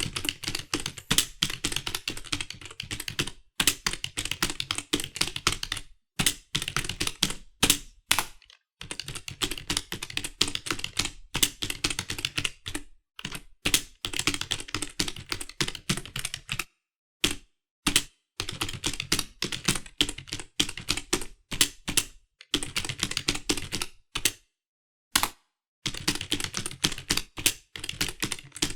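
Typing on a computer keyboard: quick runs of key clicks in bursts of a few seconds, with short pauses between them.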